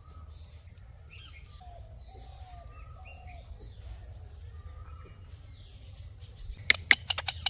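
Birds chirping: many short, faint chirps and whistled glides over a low background hum. Near the end comes a quick run of about half a dozen sharp, loud clicks.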